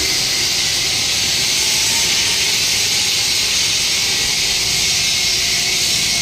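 A loud, steady hiss that holds without a break.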